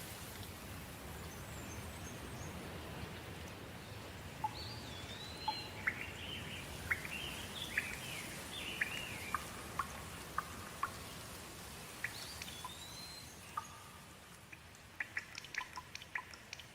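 Steady rain falling, with birds chirping and calling over it in the middle. The rain thins near the end, leaving a run of quick water drips.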